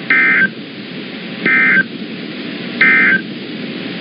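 Three short bursts of Emergency Alert System SAME data tones, the warbling digital signal sent at the end of an alert as the end-of-message code. The bursts are about a second and a third apart and have a hiss of radio noise under them.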